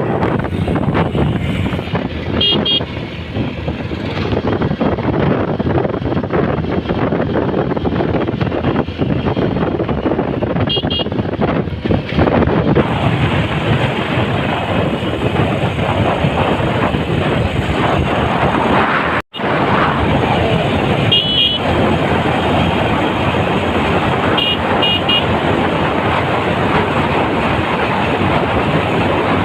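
Steady wind and road noise of a motorcycle riding along a road, with short vehicle horn toots four times. The sound cuts out for a split second about two-thirds of the way through.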